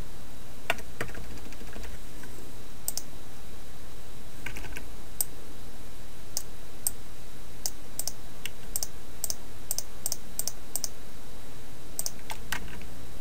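Irregular clicking of computer keys, single sharp clicks scattered through, coming quicker in the middle, over a steady low hum.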